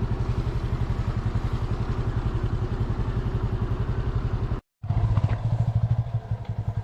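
Motorcycle engine running steadily with an even low pulse as the bike rides downhill. The sound cuts out completely for a moment about two-thirds through, then the engine resumes.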